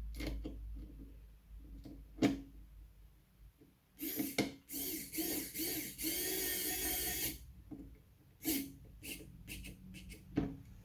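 Xiaomi Wowstick electric precision screwdriver whirring in a few short bursts and then in one steady run of over a second, driving in the small screw that holds an M.2 drive to the motherboard. A few sharp handling clicks come before and after.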